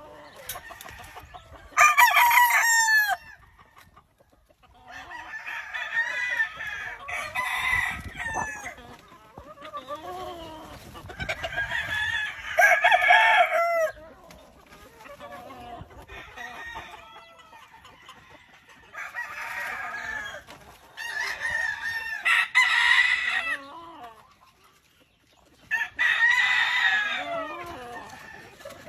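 Several gamefowl roosters crowing one after another, often overlapping, a new round of crows every few seconds with short lulls between.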